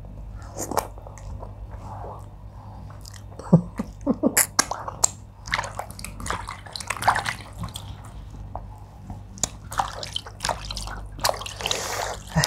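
Close-miked wet mouth sounds: fingers being licked clean of soup and lips smacking, a scattering of short, sharp, wet clicks and smacks.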